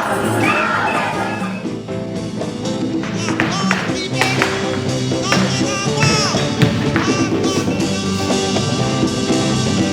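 Music: held, steady notes with sharp percussive strikes in the middle stretch.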